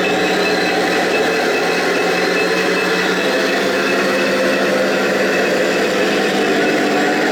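Remote-control toy tank running, a steady engine-like hum with no break.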